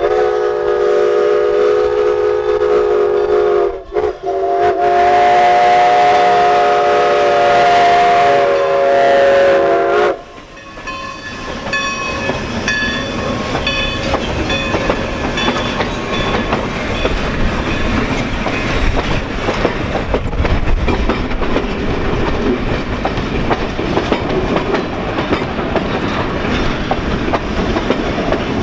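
A steam locomotive's chime whistle sounds several notes together in two long blasts for a grade crossing, the second lasting about six seconds. After the whistle stops, the passenger cars roll past close by with a steady rumble and clickety-clack of wheels over the rail joints.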